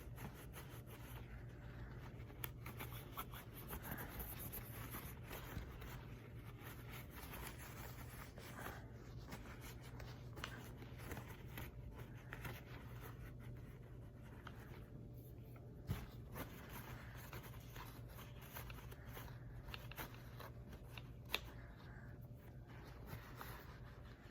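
Cloth rubbing and scuffing against a stainless revolver frame during a wipe-down, with a few light clicks of the metal being handled, two of them sharper, about two-thirds of the way through and near the end. A steady low hum underneath.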